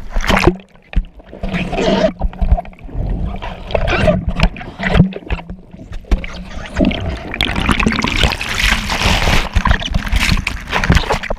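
Sea water splashing and rushing around a GoPro action camera in the surf, with wind buffeting the microphone; a longer, louder rush of water fills the second half.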